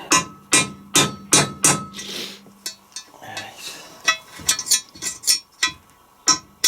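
Hammer blows on a punch driving a bearing race out of an LT230 transfer box casing: a run of sharp metal-on-metal strikes, roughly two a second with a short pause midway, each leaving a brief metallic ring.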